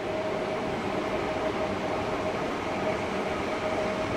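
Electric multiple unit rolling slowly into a station platform: a steady running noise with a constant whine.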